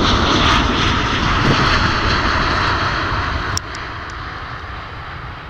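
Boeing 787-9 Dreamliner's jet engines at climb power just after takeoff: a loud, steady rumble and roar of jet noise. The level drops suddenly about three and a half seconds in, and the noise carries on more quietly.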